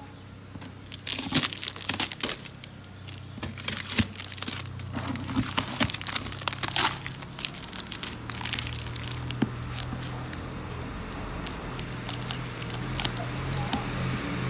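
Clear plastic wrap and packing tape crinkling and tearing as a taped cardboard box is pulled open by hand, in irregular crackles and rustles. A low steady hum comes in about halfway through.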